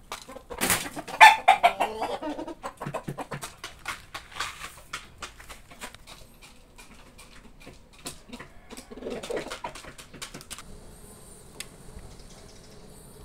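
Chickens clucking and calling, with a loud falling call about a second in and another call around nine seconds, amid many short sharp clicks and taps. Near the end the chicken sounds stop, leaving only a faint steady high hum.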